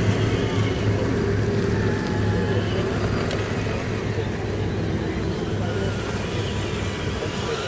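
Electric motors and geartrains of scale RC crawler trucks whirring as they climb a loose dirt slope, over a steady low hum.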